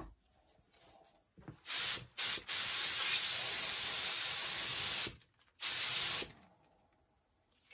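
Gravity-feed cup spray gun on compressed air, spraying gelcoat with a loud hiss in four trigger pulls: two short bursts, then a long spray of about two and a half seconds, then one more short burst.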